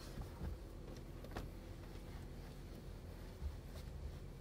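Faint rubbing and a few soft knocks of a cloth being wiped over the inside of a car window, over a steady low hum.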